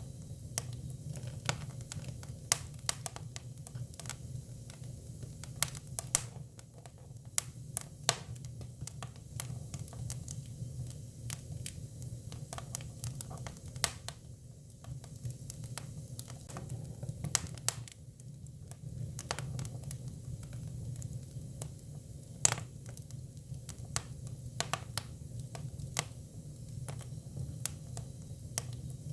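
Japanese cypress (hinoki) firewood burning: a fire crackling with irregular sharp pops and snaps, several a second, over a low steady rumble.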